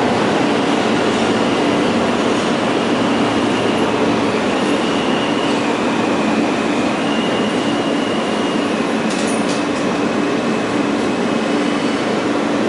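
New York City subway train running in a tunnel, heard from inside the car by the end door. The wheels on the rails make a steady loud rumble, with a steady low hum underneath and a thin high whine that shifts in pitch now and then.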